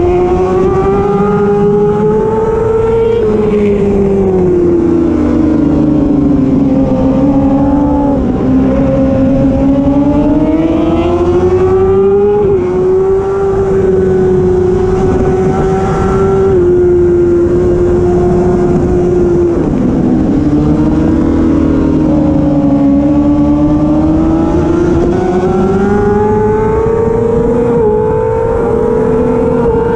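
Racing motorcycle engine running hard at high revs, its pitch rising and falling smoothly as the bike accelerates and slows, with a few sudden small drops in pitch.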